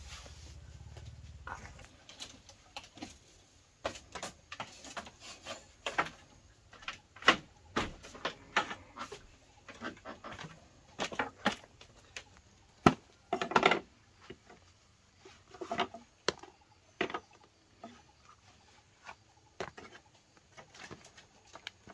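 Irregular wooden knocks and creaks of footsteps on a springy bamboo-slat floor and bamboo steps.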